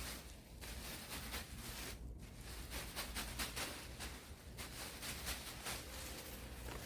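Irregular rustling and scraping from hands handling things close to the microphone, over a steady low wind rumble.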